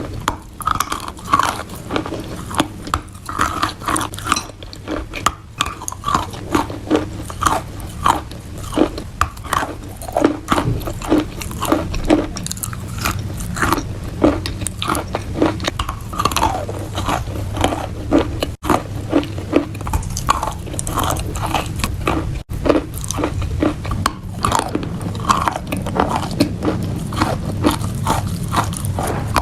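Close-miked biting and chewing of wet chalk: a dense run of sharp, moist crunches several times a second over a steady low hum.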